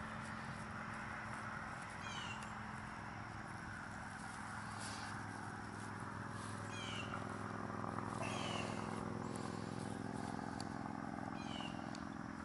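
Quiet outdoor background: a steady low hum, with short high falling chirps repeating every two to three seconds and a few faint clicks.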